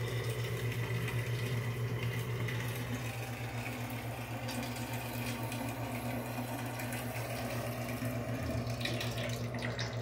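A steady low hum with a fast flutter, over faint water sounds from a tub of water.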